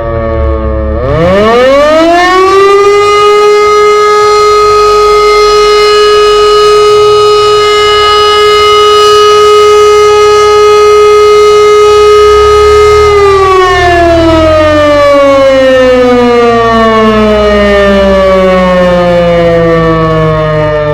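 Civil defence siren sounding the German fire-alarm signal in a test. At the start its pitch is still falling; about a second in it winds up fast to a steady high tone, holds it for about twelve seconds, then winds down in a long falling glide.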